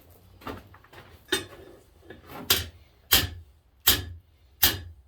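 Blacksmith's hammer striking hot steel on the anvil horn in a steady run of blows, about one every 0.7 seconds, the first few light and the rest harder. The blows are straightening a crooked poker handle.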